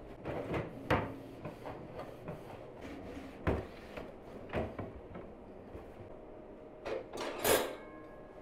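Kitchen cabinets being wiped down with a cloth, with a string of knocks and bumps from drawers and cupboard fronts being handled. The loudest bumps come about a second in, about three and a half seconds in, and near the end.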